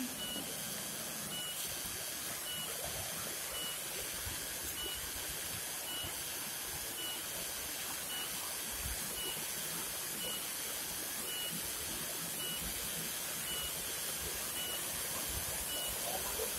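Steady hiss of falling water, with a faint high chirp repeating about twice a second.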